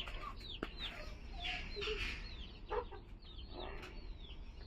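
Chicks peeping: many short, high calls, each falling in pitch, repeated a few times a second, with a few lower clucks around the middle.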